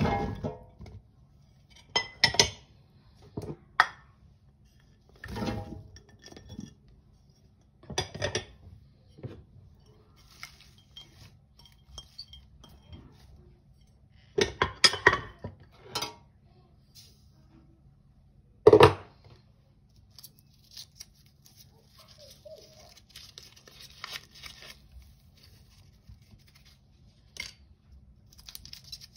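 Cut vegetables being tipped from serving bowls into a stainless steel pot, with a series of separate clinks and knocks as the bowls touch the pot and the pieces drop in. About three quarters of the way in comes a stretch of crinkly rustling as stock cubes are unwrapped and crumbled over the vegetables.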